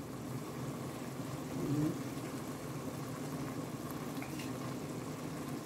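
Ground onion-tomato masala frying in oil in a pan, a faint steady sizzle and bubble, with a brief louder sound just under two seconds in.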